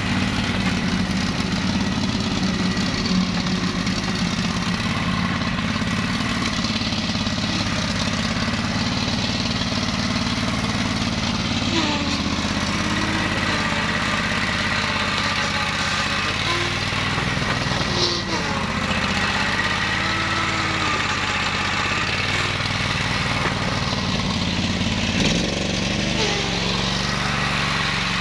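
Engine of a ride-on flail mower running steadily at an even speed.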